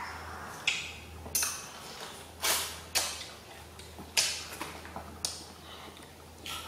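A child eating a green orange, biting and sucking at the fruit: a string of short, sharp mouth sounds, about eight in all, over a faint steady low hum.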